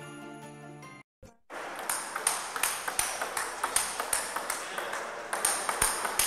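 Christmas music with jingle bells cuts off about a second in. After a brief silence, a run of sharp, irregular pinging clicks follows, a few each second, over a steady hiss.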